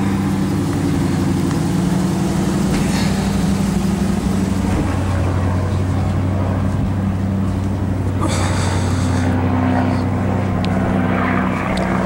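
Vehicle engine idling steadily with a low hum, with a short burst of higher noise about eight seconds in.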